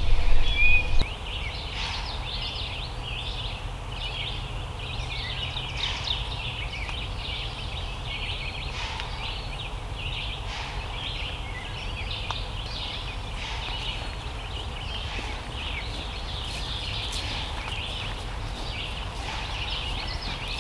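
Morning chorus of songbirds: many small birds chirping and singing at once, steady throughout. A low rumble sounds in the first second and then cuts off.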